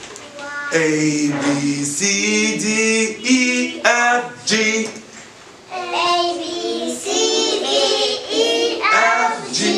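Singing of a children's phonics song for the letter I, a melody of long held notes with a wavering pitch.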